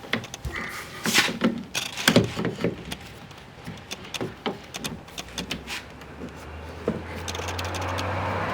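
Scattered clicks and light knocks of parts and tools being handled on a car door. From about seven seconds in, a passing vehicle's engine and tyre noise grows steadily louder.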